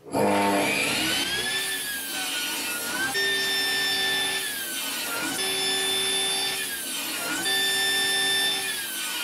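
Table saw ripping a pine board. The blade's whine sags in pitch and recovers about four times as the board is pushed through.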